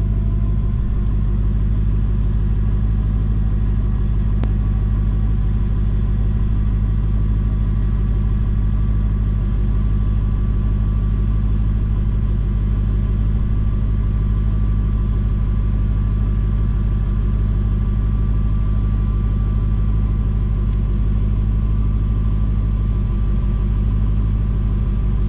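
Dodge Challenger Hellcat's supercharged 6.2-litre Hemi V8 idling with a steady, deep rumble that holds unchanged.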